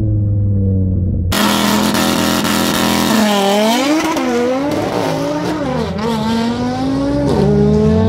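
Turbocharged five-cylinder engine of a tuned Audi TT RS drag car, first heard muffled from inside a car's cabin. It is then heard from the start line, revving up and down as the car is held for launch, then accelerating away with the engine pitch climbing steadily.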